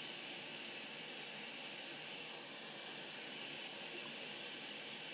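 Hot air rework station blowing a steady hiss of hot air onto a laptop logic board to desolder a shorted ceramic capacitor.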